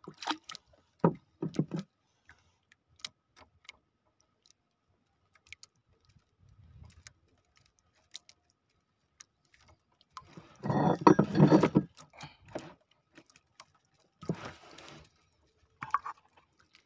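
Handling noise from a fishing handline being paid out of a hand spool in a wooden canoe: scattered sharp clicks and light knocks, with a loud noisy burst lasting a second or two about ten seconds in and a shorter one near fifteen seconds.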